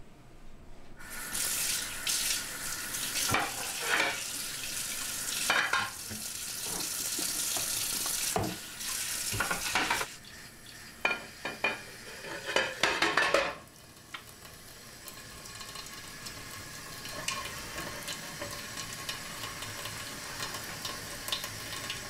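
Kitchen tap running into a sink during washing up, starting about a second in, with a few clinks and knocks of ceramic cups and dishes around the middle, then the water runs on more softly.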